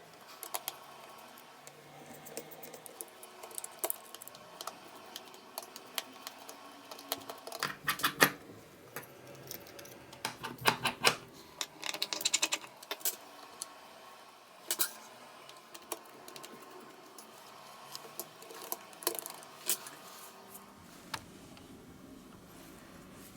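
Irregular light clicks, taps and small rattles of hand tools and small parts being handled on a workbench, with a few brief clusters of rapid clicks.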